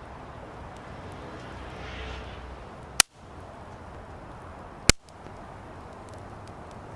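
Firewood burning in a fire pit with faint scattered crackles, and two loud sharp pops about two seconds apart, around the middle.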